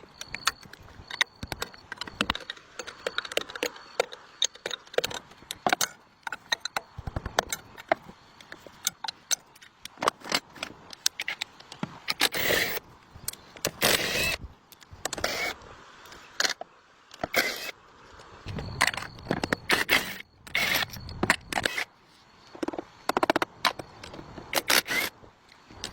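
Hand tools clinking, scraping and knocking irregularly against metal parts during tractor repair work.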